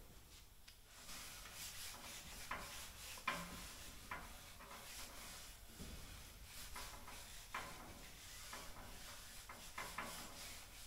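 Hand-sanding primed aircraft fabric: faint, irregular rubbing and scraping strokes about once a second, with a sharper knock about three seconds in.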